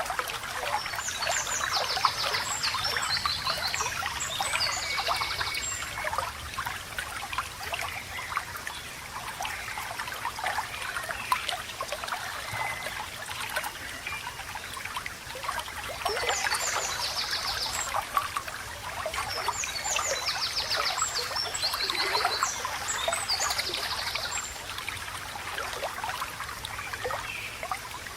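Shallow water babbling and trickling steadily over stones, with birds chirping in quick repeated high trills in two spells, one at the start and a longer one from about the middle on.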